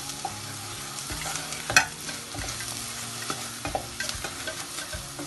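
Wooden spatula stirring and scraping an onion and spice-powder masala frying in oil in a stainless steel pot, over a steady sizzle: the spice powders are being fried until their raw smell cooks off. A sharp knock stands out about two seconds in.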